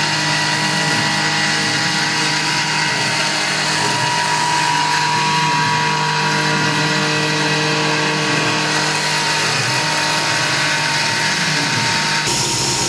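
Tormach PCNC 1100 CNC mill cutting a pocket in aluminum bar stock with a roughing end mill under flood coolant. A steady spindle whine sits over the hiss of the cut and the coolant spray. The sound shifts abruptly near the end.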